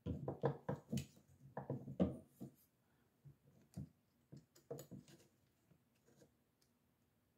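Faint clicks and taps of a hex key working a scope ring screw, with light handling of the scope and rifle: a quick run of them in the first two or three seconds, then sparser and fainter.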